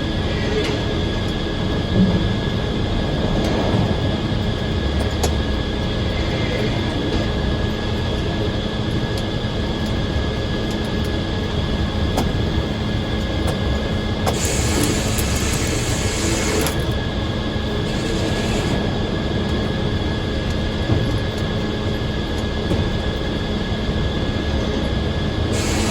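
Circular sawmill running: steady machine noise with a constant high whine and a low hum. A brief hiss comes in a little past the middle.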